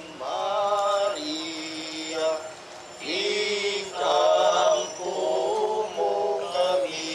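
A group of men singing a hymn together in unison, holding long notes with short breaks between phrases.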